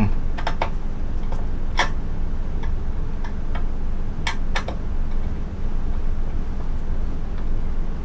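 A steady low hum with a scattered series of short, light clicks and taps, most of them in the first half.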